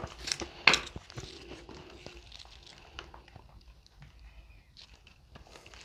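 Quiet room with a few short clicks and soft plastic rustles as a sour cream squeeze pouch and its cap are handled; the sharpest click comes just under a second in.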